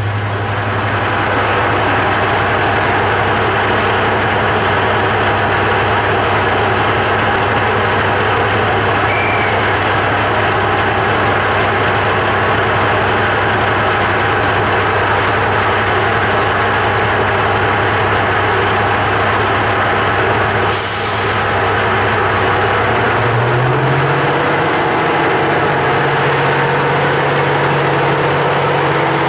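Class 55 Deltic diesel locomotive's twin Napier Deltic two-stroke engines idling steadily, with a deep hum. There is a brief hiss about 21 seconds in, and soon after the engine note steps up a little and holds there.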